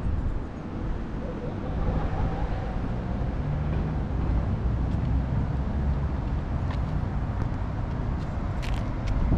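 Outdoor city ambience: a steady low rumble of distant traffic, with no distinct events.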